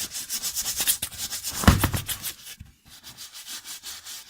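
Sanding block rubbed by hand back and forth over a wooden bass drum hoop, about four or five quick rasping strokes a second, with one loud knock about a second and a half in. After a short pause the strokes go on lighter.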